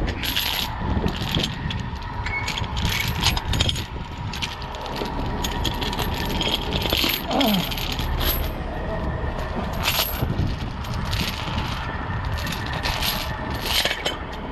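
Steel recovery chains clinking and rattling as they are handled and laid out, in repeated short metallic clinks over a steady low rumble.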